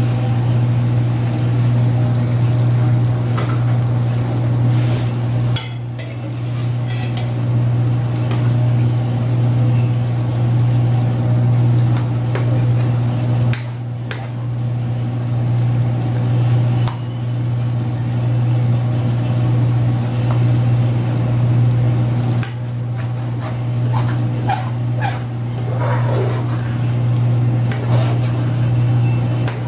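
Beaten egg pouring into sardine sauce in an aluminium wok at the start, then a metal spoon stirring and scraping against the wok, with scattered clicks that come thickest near the end. A steady low hum runs underneath.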